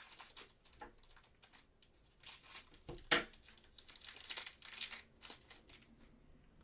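Foil wrapper of a trading card pack being torn open and crinkled by hand: a run of papery crackles, the sharpest about three seconds in.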